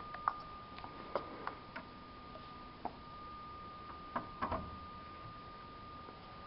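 Scattered light clicks and taps from hands handling the filter's metal fittings and turning the control cabinet's rotary switch, with the loudest cluster about four seconds in. A steady high tone runs underneath.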